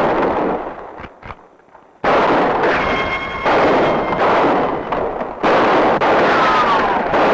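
Gunfire in a western shootout: a string of loud gunshots, each with a long echoing tail, after a short lull about a second in. Ricochet whines ring out between shots, one falling in pitch near the end.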